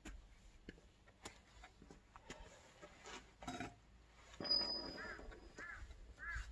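Faint scattered knocks and clicks, then a brief rasping noise with a thin high whine about four and a half seconds in. From about five seconds in, a bird gives short repeated calls, about four of them roughly half a second apart.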